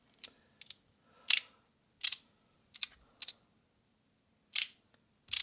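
3D-printed PLA fidget slider (Fidgetboy Ronin) clicking as its plates are slid and snapped into place: about ten sharp clicks at uneven intervals, some in quick pairs.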